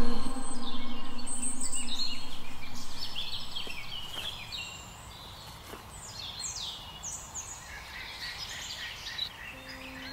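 Many birds chirping and calling, a scatter of short, quick falling chirps overlapping and thickening toward the end, over a steady background hiss. A low hummed note fades out over the first three seconds.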